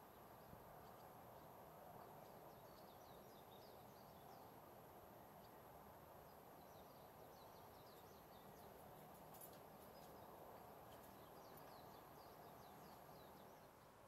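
Near silence: faint outdoor ambience with distant birds chirping off and on.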